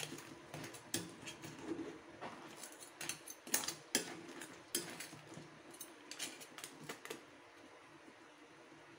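Metal ladle clinking and scraping against a stainless steel pot while stirring crabs in a thick coconut-milk stew, in many quick irregular clinks. The clinks stop about seven seconds in.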